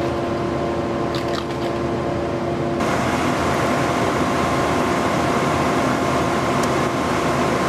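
Drilling rig for vertical geothermal loop boreholes running steadily, a mechanical engine hum with a few faint clicks near the start. About three seconds in the sound changes abruptly and turns brighter and hissier.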